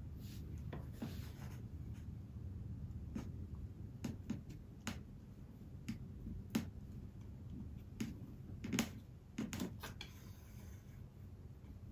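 Irregular small clicks and taps of fingers handling a small metal hook and a wooden-framed board, the sharpest about six and a half and nine seconds in, over a low steady hum.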